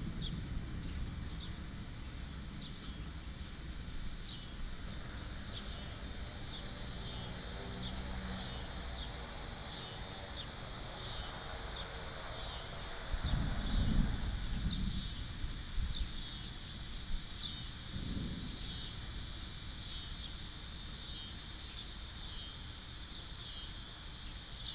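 Insects calling in a steady high pulsing rhythm, about one pulse a second, under a dark storm sky. About halfway through, a low rumble of thunder swells and fades, with a shorter rumble a few seconds later.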